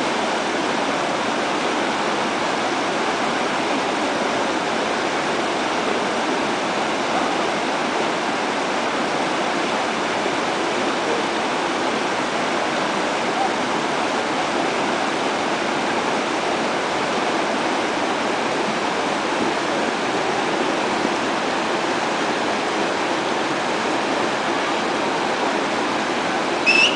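Shallow, rocky river rushing over stones in rapids: a steady, even rush of water.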